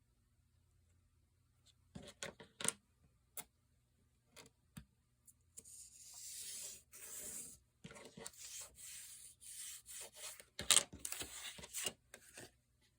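Paper being handled on a craft desk: a few light taps and clicks, then paper sliding and rubbing in several strokes, with sharper clicks among them and one louder knock near the end.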